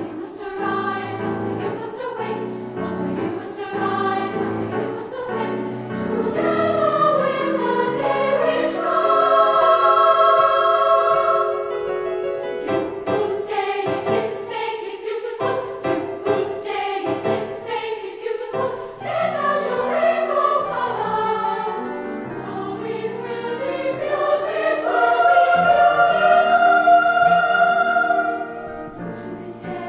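A choir singing a piece with long held chords, the voices swelling to their loudest about ten seconds in and again near the end.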